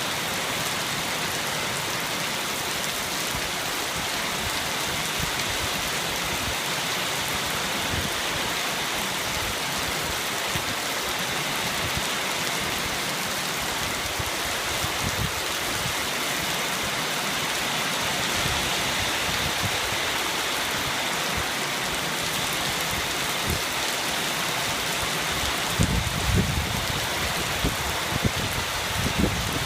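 Steady heavy rain falling, a constant even hiss, with a few low thumps near the end.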